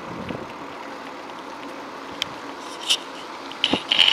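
Steady rolling noise of a bicycle ridden on a paved road, tyre hum mixed with wind on the microphone, with a few sharp clicks or rattles near the end.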